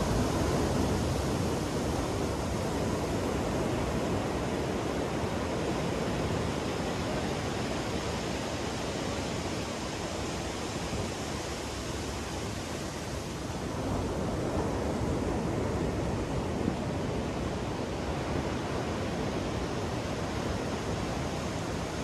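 Ocean surf breaking and washing up a sandy beach: a steady rushing that swells at the start and again about two-thirds of the way through.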